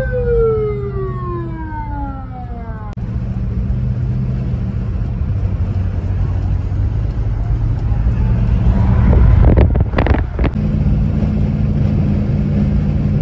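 A police car siren winding down in a long falling wail, cut off about three seconds in. Then the 1969 Plymouth police car's engine and road noise are heard from inside the moving car, the engine getting louder for a moment around nine to ten seconds in.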